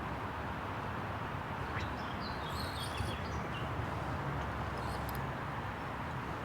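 A small bird chirping a few short, high notes over steady outdoor background noise, the chirps about halfway through and again a little later.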